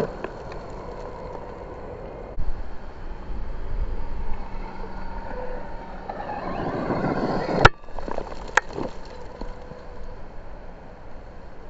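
Losi Promoto-MX RC dirt bike's brushless electric motor whining up and down in pitch as it spins the rear tyre in loose gravel, louder in the second half. A sharp click about two-thirds of the way in.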